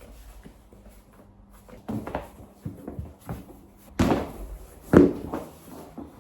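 A few separate knocks and thuds in a small room, the loudest about five seconds in.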